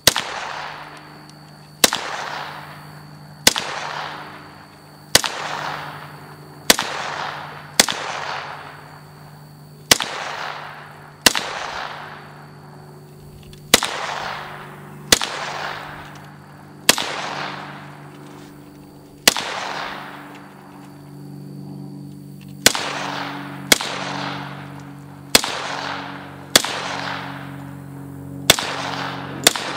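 1927 Thompson submachine gun in .45 ACP fired one shot at a time, about a shot every one to two seconds, each sharp report followed by a long fading echo.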